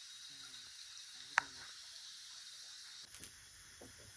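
Steady high-pitched insect chirring of a rural evening, with faint distant voices and one sharp click about a second and a half in.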